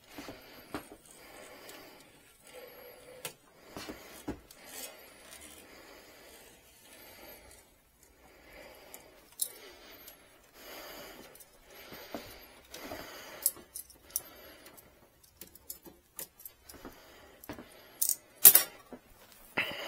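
Perforated vinyl decal and its backing being handled and smoothed on: irregular rustling and crinkling with light clicks and taps, and a few sharper clicks near the end.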